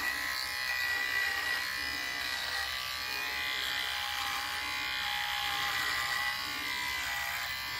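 Electric beard trimmer buzzing steadily as its blade cuts through a full beard.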